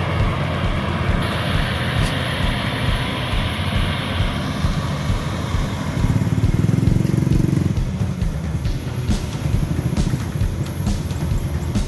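Rice combine harvester running steadily with a low, rhythmic engine throb, growing louder for about two seconds past the middle.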